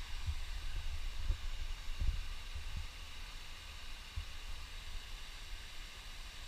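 Steady outdoor hiss with a low rumble underneath and a few soft thumps in the first four seconds.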